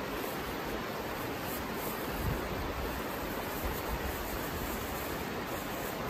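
Steady outdoor rushing noise, even and unbroken, with two faint low bumps, one a little over two seconds in and one a little under four.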